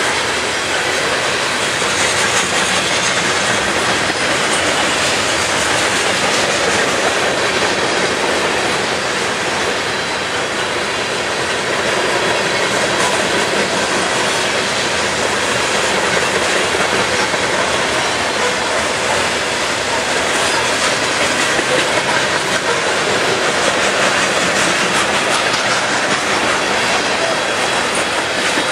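Loaded covered hopper cars of a grain train rolling past at speed, a steady loud rumble of steel wheels on the rails.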